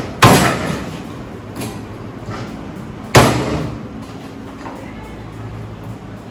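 Three heavy chops, about three seconds apart, as raw chicken is cut with a blade on a cutting board. Each chop hits sharply and rings briefly.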